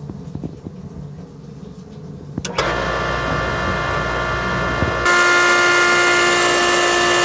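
A pressure switch clicks about two and a half seconds in and the well pump motor starts, then runs with a steady hum that steps up louder about five seconds in. This is the pump cutting on as the water pressure falls to the switch's cut-on point, set for about 40 psi.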